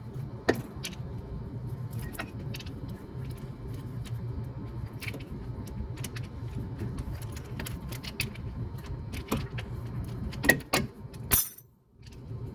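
Car being cranked with the starter grinding against a broken flywheel: a steady low hum with irregular metallic clicking and clatter, a louder burst near the end, then it cuts off suddenly.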